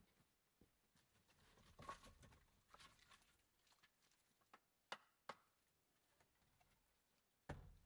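Faint footsteps crunching on frost-covered dry leaves, with a few sharp clicks about five seconds in and a heavier thump near the end.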